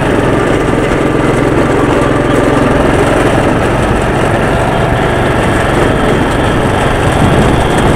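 Go-kart's small engine running steadily under throttle, heard from on board the moving kart.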